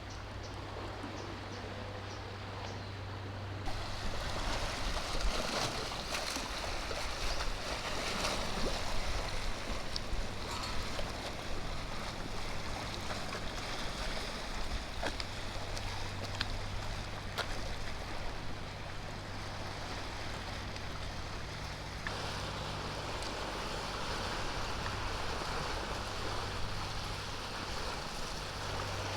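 Small waves lapping and washing along the shore of a sea bay, with a steady low hum underneath.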